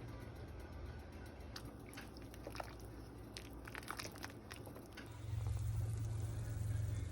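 Scattered light clicks and knocks, then a low steady hum that comes on about five seconds in.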